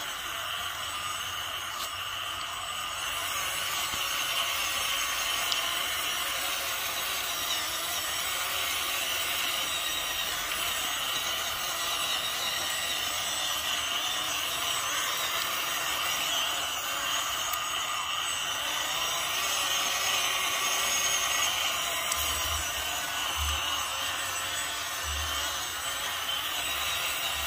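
WPL B16 six-wheel-drive RC truck's small electric motor and gearbox whining steadily as it drives through mud and water.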